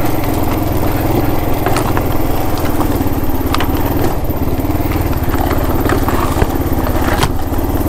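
Kawasaki KLR 650's single-cylinder engine running steadily while the motorcycle is ridden over loose rock, with scattered clicks and knocks from the stones and the bike.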